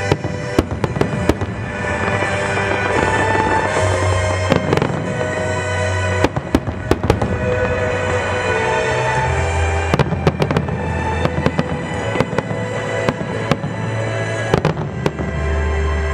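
Aerial fireworks bursting, with sharp bangs and crackles coming in clusters several times, over music playing through loudspeakers.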